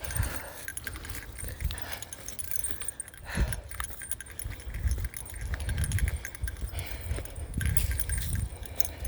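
Small bear bell jingling continuously as it swings with each step, over irregular low thuds.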